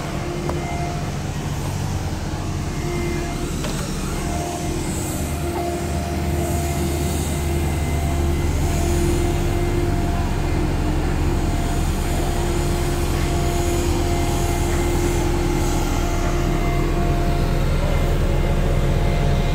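A heavy construction-machinery engine running steadily nearby, a low drone with a constant whine above it, growing somewhat louder about a third of the way in.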